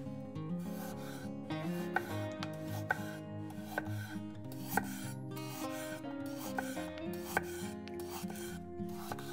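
Knife slicing vegetables on a cutting board: scraping and rubbing strokes with a sharp knock about once a second. Background music plays throughout.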